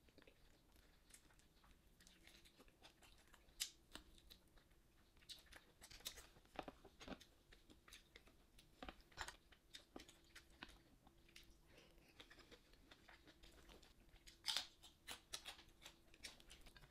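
Faint eating sounds: a person chewing, with scattered sharp clicks and smacks, the loudest about three and a half seconds in and a cluster near the end.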